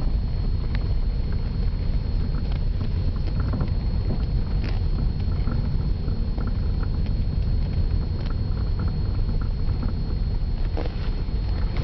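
Toyota Corolla cabin noise on the move: a steady low road rumble with scattered light knocks, the steering-column knock the car is known for.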